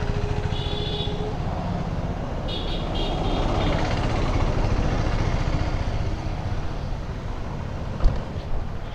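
Street traffic noise, with a vehicle passing that swells about halfway through and then fades. Two brief high-pitched beeping sounds come early on, and there is a sharp click near the end.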